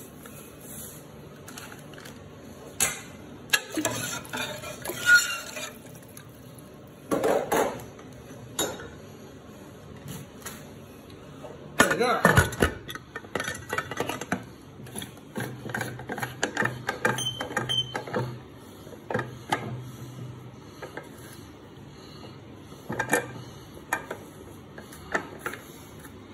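Irregular metallic clanks, clinks and scrapes of kitchenware: seasonings go into the pot, then the aluminium pressure cooker's lid is set on and worked into place, with a run of smaller ticks and knocks in the second half.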